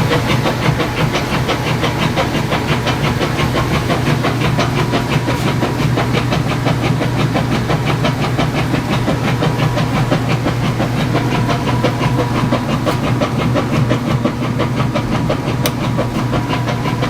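Whirlpool direct-drive washing machine running after its tub support and basket drive were replaced: a steady low motor hum with a fast, even churning rhythm over it.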